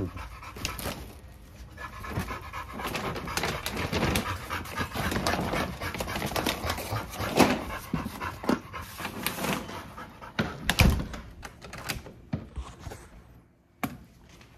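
Dog panting heavily close to the microphone, with scuffling and a few knocks or thumps, the loudest about eleven seconds in; it quietens near the end.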